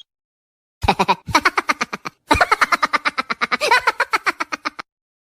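Laughing sound effect: two runs of very fast, stuttering laughter, the second longer, each stopping abruptly.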